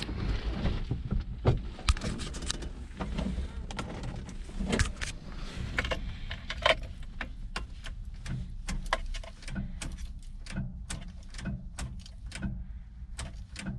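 Car ignition being worked as the driver tries to start an old car: sharp clicks and knocks from the key and switch, with a low, uneven pulsing about twice a second from the starter, and the engine not catching. The driver takes the starter for finished.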